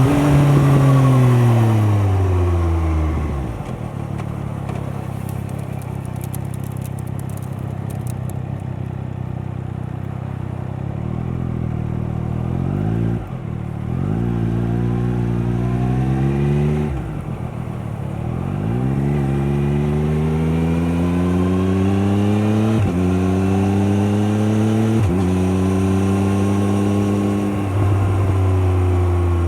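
Triumph Daytona 765 Moto2's three-cylinder engine through its stock Arrow exhaust, heard from the bike while riding. The revs fall for the first few seconds as it slows. The bike then pulls away again, revs rising in long sweeps with a sudden drop at each gear change, about five times.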